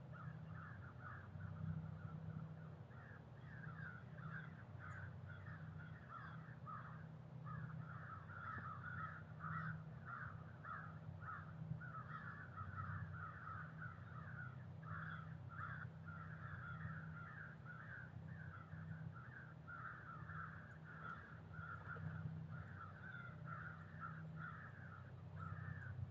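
A continuous chatter of short, raspy, crow-like calls, several to the second, over a steady low hum.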